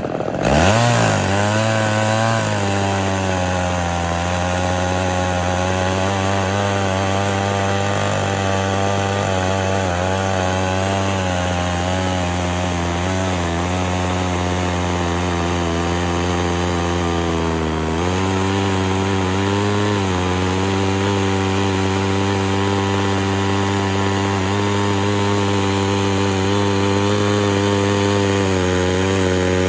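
Homelite Super XL Automatic two-stroke chainsaw engine revving up briefly and dropping back in the first couple of seconds, then running steadily at low speed with a slight wavering in pitch. About two thirds of the way through, its note shifts a little and wavers more.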